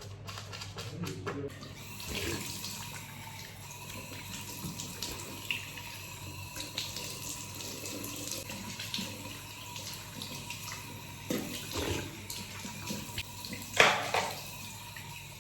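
Water running steadily, with a few short knocks over it; the loudest knock comes near the end.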